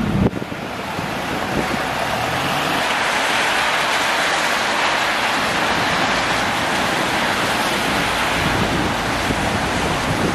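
Steady hiss of city traffic on wet, slushy roads, rising over the first second and then holding even.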